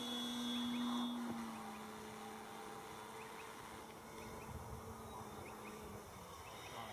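Remote-control model Cessna's motor and propeller buzzing steadily overhead. About a second and a half in, the buzz drops a little in pitch and grows fainter, then fades out near the end.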